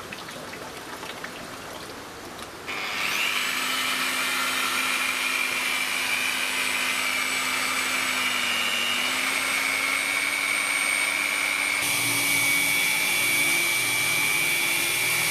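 Water-fed wet angle grinder with a 50-grit diamond pad grinding agate. Water runs with a soft hiss for the first few seconds, then the grinder starts about three seconds in and runs steadily with a whine. About twelve seconds in the sound turns louder and rougher.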